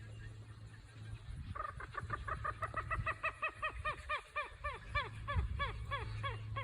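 A marsh bird calling: a long run of short, down-slurred notes, about three a second, starting about a second and a half in and carrying on.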